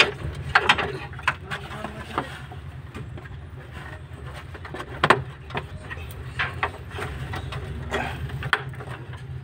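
Scattered clicks and knocks of hands handling plastic under-cover and fender-liner parts around a radiator, the sharpest about five seconds in, over a steady low hum.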